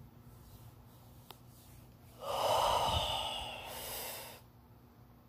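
A woman's long, heavy breath, a noisy sigh or exhale starting a little over two seconds in and fading out after about two seconds.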